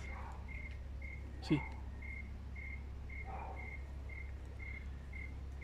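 A cricket chirping steadily at night, short even chirps about two a second. A brief sharp sound with a quick falling pitch comes about one and a half seconds in.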